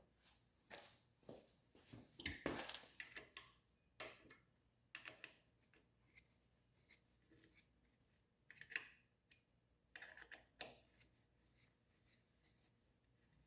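Faint, scattered clicks, clinks and short scrapes of hand tools and metal parts being handled during brake caliper work, with one sharp click about four seconds in.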